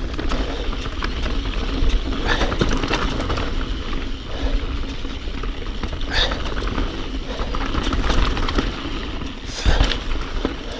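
Mountain bike riding fast down a dirt singletrack: steady rumble and rattle of the tyres and bike over the trail, with wind buffeting the action-camera microphone. Three brief louder rushes come through, about two, six and ten seconds in.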